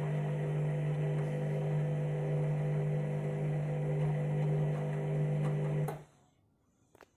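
Washing machine running with a steady electric hum, still in a long start-up with an overloaded, absorbent load; the hum cuts off suddenly about six seconds in, followed by a faint click.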